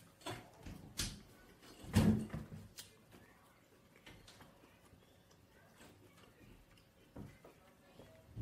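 Close-miked eating sounds: wet mouth clicks and smacks of chewing a forkful of fried cabbage. The loudest smack comes about two seconds in, followed by quieter chewing and a few more clicks near the end.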